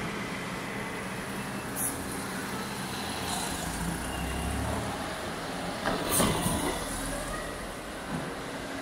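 Road traffic: cars driving past with a steady low engine rumble, and a short louder rush of noise about six seconds in.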